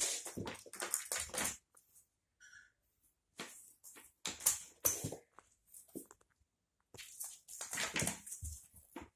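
Black cat playing with a crumpled paper ball on a laminate floor: quick scuffling paws and the paper ball skittering and crackling, in three flurries with short quiet pauses between them.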